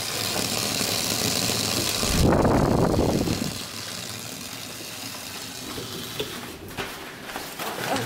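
Tap water running onto dry ice in a sink, a steady hiss and fizz that stops sharply about two seconds in. Right after it comes a loud low rumble lasting about a second, then a quieter hiss.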